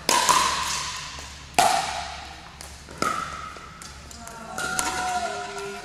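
Pickleball paddles hitting a hollow plastic ball: sharp pops that echo in the gym, a quick pair at the start, then single hits about one and a half and three seconds in. Players' voices come between the hits.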